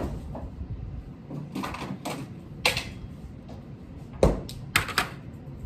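A handful of separate sharp clicks and knocks of kitchen things being handled, two of them close together near the end.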